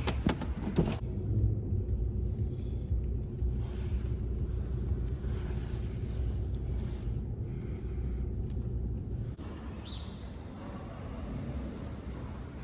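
Low, steady rumble of a vehicle in motion, with a few knocks in the first second. The rumble eases off about nine seconds in.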